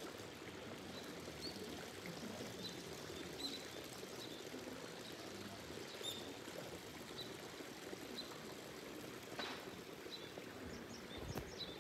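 A steady, even outdoor hiss, typical of running water, with short high bird chirps repeating about once a second and a couple of faint knocks near the end.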